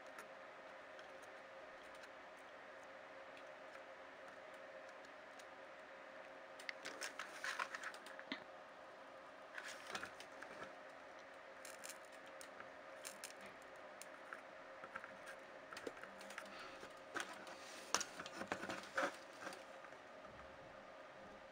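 Small metal tools clicking and scraping on a laptop circuit board during soldering work, in irregular clusters, over a faint steady electrical hum.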